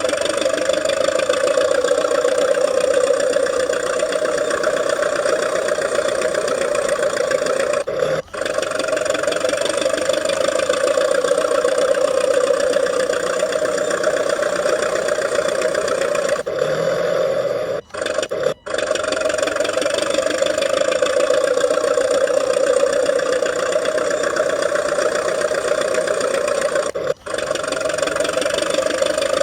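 RC model DT-54 bulldozer running steadily, a constant pitched mechanical drone, broken off abruptly three times for a moment.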